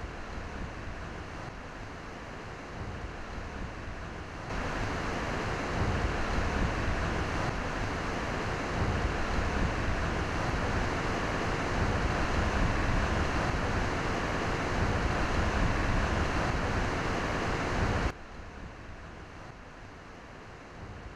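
Hurricane-force wind and driven rain over storm-surge floodwater: a dense, steady rush with no distinct events. It jumps louder about four seconds in and drops back sharply near the end.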